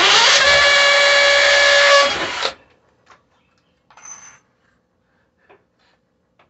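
Cordless drill drilling a hole for about two and a half seconds: the motor whine rises as it spins up, holds steady, then stops. A few faint clicks and taps of handling follow.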